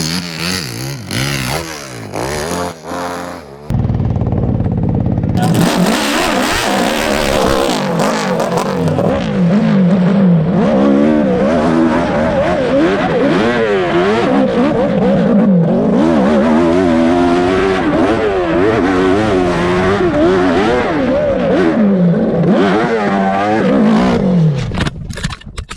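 Nitro-fuelled hill-climb motorcycle engine revving hard, its pitch sweeping up and down again and again as the throttle is worked. About 4 s in the sound breaks to a low rumble for a second or two. Loud revving then resumes and runs until it drops away near the end.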